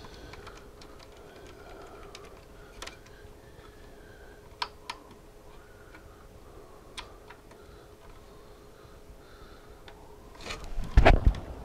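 Scattered small clicks and taps of a wire harness's harmonica connector and its wires being handled and pushed onto circuit-board pins, over a faint steady hum. Near the end a louder clatter of handling is the loudest sound.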